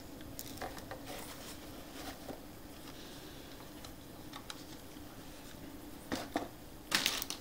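Soft handling of a plastic toy quadcopter and its remote control over a cardboard box: a few light clicks and knocks, then a louder rustle near the end, over a faint steady room hum.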